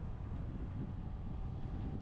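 Steady low rumble of a car climbing a mountain road, engine and tyre noise with wind buffeting the microphone.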